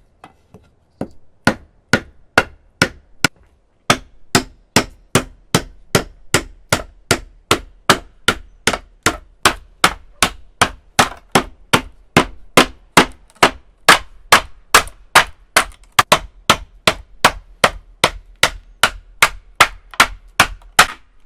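Hammer blows driving a blade into a thick bamboo cane to split it lengthwise into four, each a sharp knock with a short ring. A few light taps, then steady blows at about two to three a second from about four seconds in.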